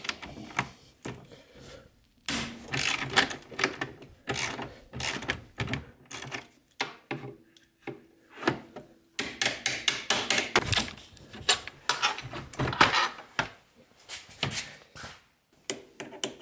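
Hand ratchet and wrench working a snowmobile ski's pivot bolt loose: bursts of rapid clicking and metal tool clinks, broken by short pauses.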